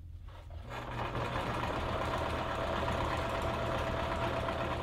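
Electric sewing machine running steadily, stitching two layers of mesh screen panel together; the motor starts up about a second in and keeps an even hum.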